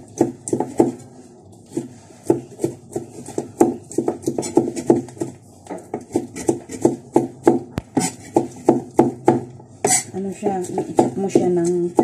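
Chinese cleaver chopping meat finely on a round wooden chopping block: a steady run of sharp knocks, about two to three a second.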